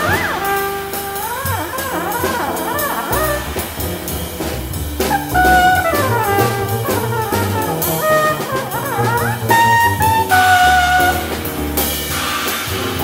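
Jazz quartet playing: a trumpet carries the melody with bending, sliding notes and held tones, over piano, plucked upright bass and a drum kit with cymbals.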